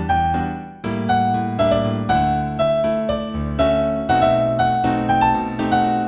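New-age instrumental music from the HumOn composition app, with an electric-piano-like keyboard sound. A stepping melody of single notes plays over held low chords, with a short drop in loudness and a fresh chord about a second in.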